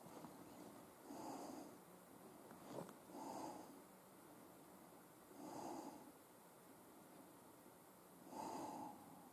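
Faint, slow breathing close to the microphone, four soft breaths about two to three seconds apart, with a faint click a little under three seconds in.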